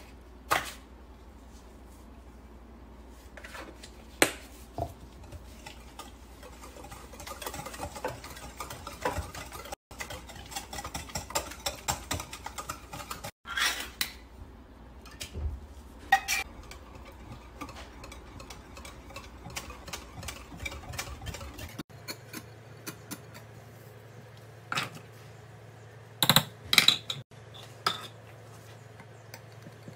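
Metal wire whisk stirring and clinking against a glass mixing bowl, with scattered sharp clinks and taps of kitchenware. Rapid small clinks come thick in the middle, and the loudest clinks bunch together near the end.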